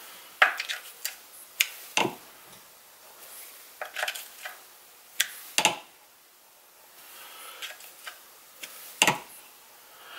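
Irregular, sharp metallic clicks and ticks from a Husqvarna 372 XP chainsaw's chain being tightened with a screwdriver and pulled by hand along the bar to check its tension.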